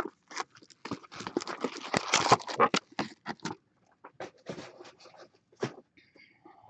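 Trading cards being handled and sorted by hand: a quick run of clicks, taps and rustles that thins out to scattered taps in the second half.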